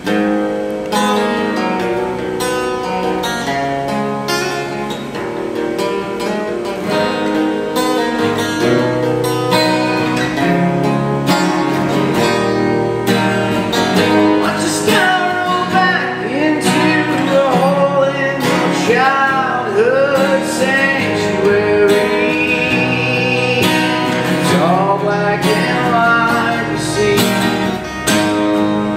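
A band playing a song live: a guitar strummed in a steady rhythm, with a voice singing over it from about halfway in.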